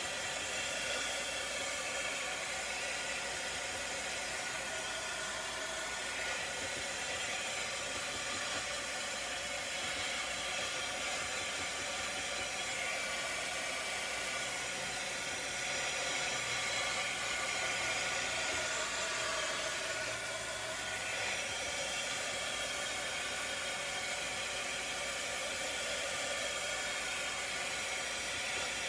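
Small handheld heat gun blowing steadily, drying freshly applied chalk paste on a stencilled chalkboard.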